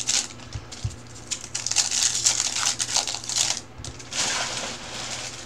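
Foil trading-card pack wrappers crinkling and rustling as packs and cards are handled, in several short bursts.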